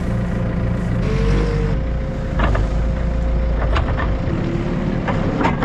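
Farm loader's diesel engine running while a round bale is lowered into a cattle ring feeder. The engine drone eases off about four seconds in. Two short steady tones sound, one about a second in and one near the end, along with a few knocks and rattles in the second half.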